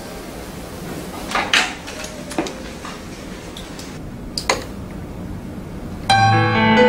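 Short knocks and clatters, a few at a time, over a steady background hiss, like dishes or a door being handled; piano music comes in near the end.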